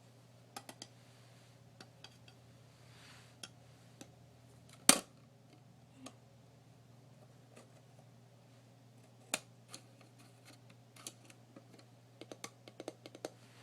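Scattered light taps and clicks of small objects being handled, with a sharper click about five seconds in, another just after nine, and a run of small ticks near the end, over a faint steady hum.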